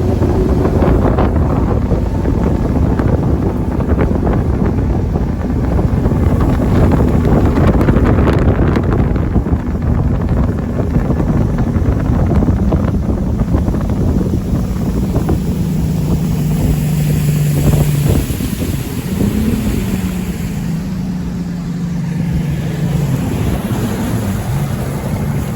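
Motorboat engine running underway, its tone shifting in pitch a few times, with wind buffeting the microphone.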